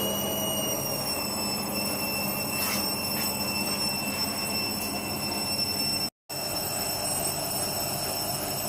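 A machine running steadily: an even whirring noise with a steady high-pitched whine over it, cut off for a moment about six seconds in.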